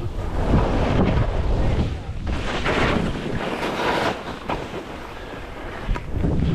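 Skis scraping and hissing across choppy, wind-packed snow at speed, under heavy wind buffeting on the microphone. The noise swells and eases in surges, loudest in the first half and again near the end.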